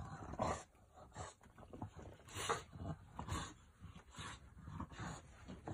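English bulldog burrowing its face into the fleece blankets of its bed, breathing noisily through its nose and rustling the fabric in irregular short bursts.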